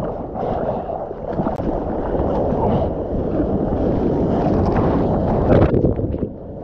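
Seawater rushing and splashing around a GoPro at water level as a bodyboard moves through a breaking wave: a steady low rush of water with sharp splashes, loudest about five and a half seconds in.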